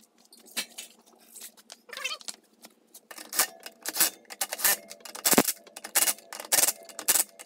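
Cordless impact driver tightening wheel lug nuts, in a series of short hammering bursts that start about three seconds in, after some quieter clatter.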